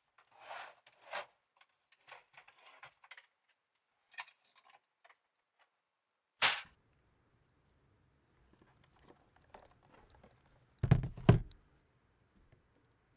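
Small handling clicks and rustles, then a single sharp knock, and near the end two heavy thumps in quick succession.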